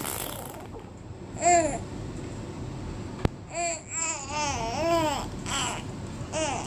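Baby girl babbling in short vowel-like coos with a rising-and-falling pitch: one about a second and a half in, then a run of several from about three and a half seconds on. Her mother takes them for her vowels.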